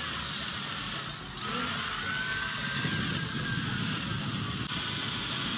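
Small electric motors and propellers of a toy quadcopter drone whining while it flies low and hovers. The sound drops briefly about a second in, then returns with a tone that slowly rises and falls as the motors change speed.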